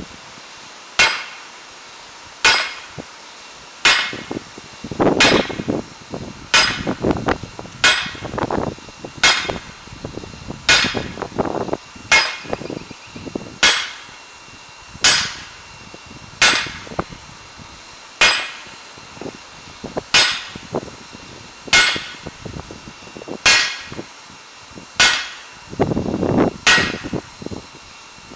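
Sledgehammer blows on a red-hot steel greatsword blade on a round steel-block anvil: a steady series of single strikes about one every second and a half, each ringing briefly.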